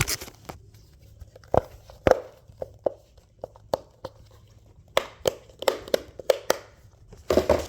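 Butterfly-shaped simple dimple fidget toy having its dimples pressed, giving a string of sharp, irregular clicks, sparse at first and coming faster in the second half.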